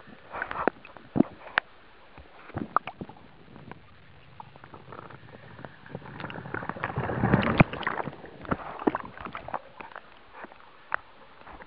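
Pool water splashing and gurgling around a waterproof camera that dips in and out of the water, with many sharp clicks and pops. A louder rush of splashing comes about seven seconds in.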